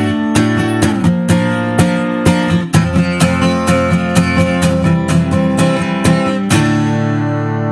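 Solo acoustic guitar strumming chords at about two strums a second, then a final chord left to ring out near the end.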